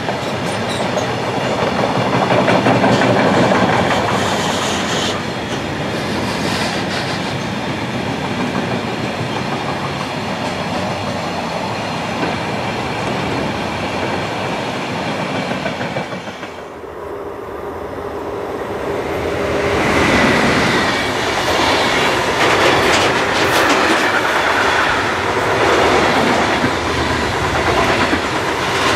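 Freight wagons rolling past on the rails with a steady clatter of wheels: first a train of covered car-transporter wagons, then, after a short drop in sound about halfway, a container train passing close and louder.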